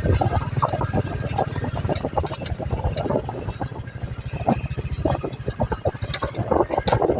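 Motorcycle engine running on the move, a fast, uneven low exhaust pulse that swells and eases in level.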